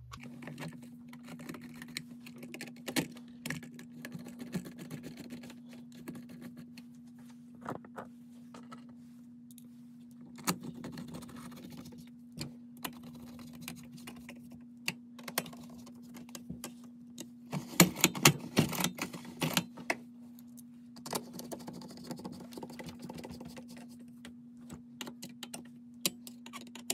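Screwdriver turning screws into a plastic recoil starter housing on a small two-stroke trimmer engine: scattered small clicks and taps, with a dense run of louder clicks about eighteen seconds in, over a steady low hum.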